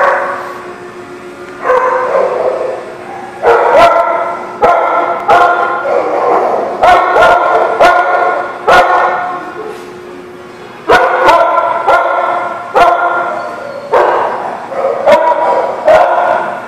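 Dogs barking in play, a dozen or so sharp barks with pauses between, each ringing on in the echo of a hard-walled room.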